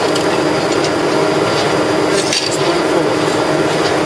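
Ice slurry pumping rig running steadily with a constant mechanical drone, and a brief clatter a little past two seconds in.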